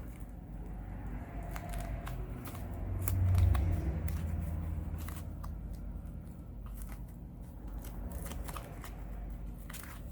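Plastic opening pick slid along the edge of a heated Samsung Galaxy Note 10 Plus back glass: scattered small scraping clicks and crackles as the adhesive lets go. A low dull bump swells up about three and a half seconds in.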